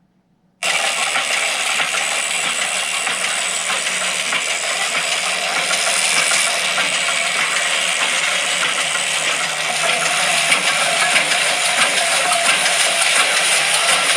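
A machine running with a dense, steady mechanical clatter. It cuts in suddenly about half a second in.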